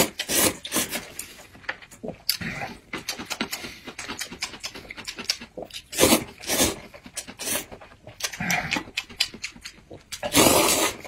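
A man slurping rice noodles from a bowl: about four long slurps, with quick wet mouth clicks and chewing between them.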